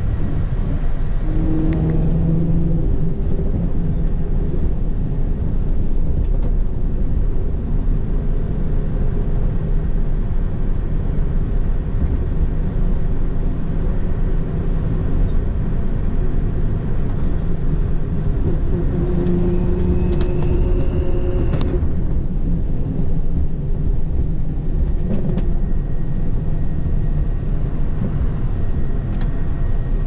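Inside a bus cabin: the bus's engine running with steady road rumble from the tyres on a rough road, and a few sharp clicks and rattles now and then.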